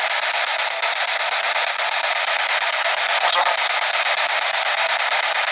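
P-SB7 spirit box sweeping through radio stations, giving a steady hiss of static. About three seconds in a brief snatch of broadcast sound breaks through, which the investigator captions as a spirit reply.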